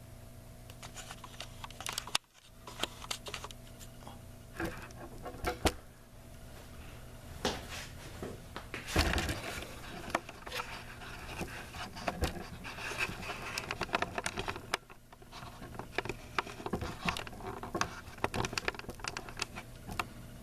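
Scattered clicks, taps and scrapes of hands working inside a garage door opener, handling its logic board, screws and wiring, over a steady low mains hum.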